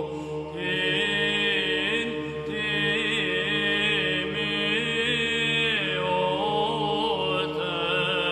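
Byzantine church choir chanting an Orthodox Christmas hymn: voices carry a winding, ornamented melody over a steady held low drone note (the ison).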